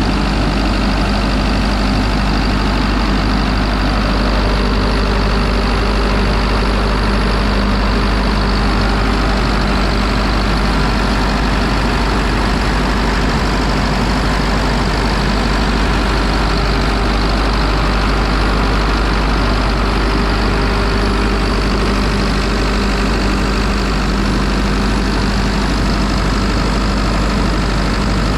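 Diesel engine of a Hyundai Robex 140W-7A wheeled excavator idling steadily, a constant low hum with no revving.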